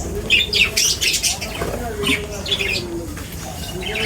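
Several birds calling in short, sharp, high-pitched bursts, with a lower drawn-out call that slides down in pitch around the middle.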